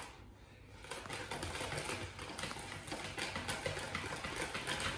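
Cream cheese glaze being mixed in a bowl: a steady, rapid mixing noise that dips briefly right at the start, then carries on evenly. The glaze is nearly fully blended.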